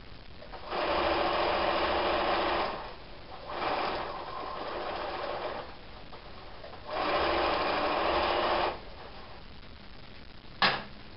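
Electric domestic sewing machine stitching through fabric strips in three runs of about two seconds each, the middle one quieter, with pauses between. A single sharp click near the end.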